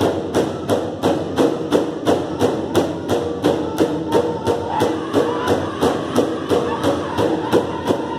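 Ojibwe big drum (powwow drum) struck in unison by several drummers in a steady beat of about three strokes a second, each stroke ringing on. Voices hold pitched notes over the beat.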